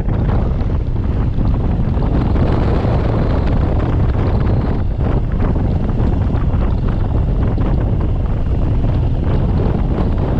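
Loud, steady wind noise on the microphone of a moving motorcycle.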